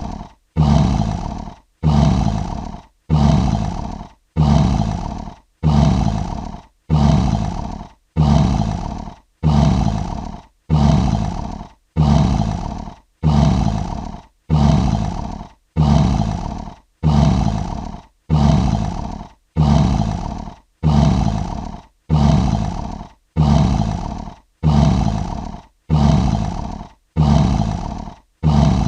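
Lion sound effect: a short, deep roaring grunt repeated about once a second, each starting abruptly and fading out. The same grunt comes back identically each time, as a loop.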